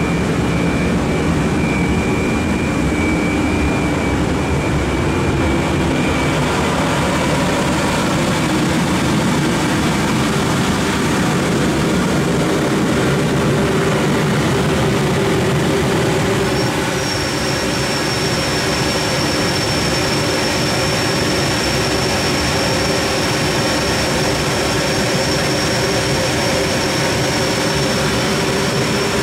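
Rotary drum dryer plant in operation, its burner firing: a loud, steady machinery roar with no let-up. A thin high steady whine comes in a little past halfway.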